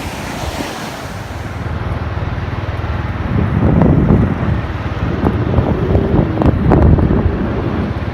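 Heavy wind buffeting the microphone: a loud, rumbling rush that swells through the middle and eases near the end.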